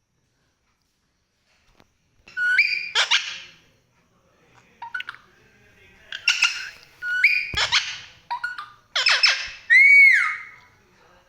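Pet parrot calling in a run of short squawks and pitched whistles, starting about two seconds in. Near the end it gives a loud whistle that rises and falls.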